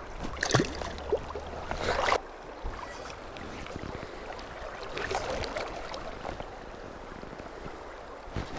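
River current flowing and lapping around a wading angler, with a couple of short splashes in the first two seconds.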